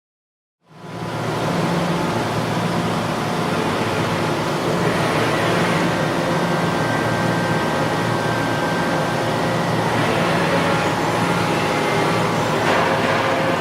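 Steady running noise of a CNC horizontal machining center: a low hum under a broad hiss, with faint high whining tones. It comes in suddenly about a second in.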